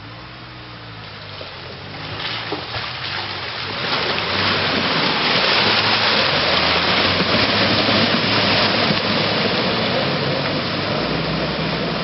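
SsangYong Kyron SUV ploughing through a deep, water-filled mud rut: its engine runs under load while the tyres churn and throw up muddy water. The splashing grows loud about four seconds in and keeps on.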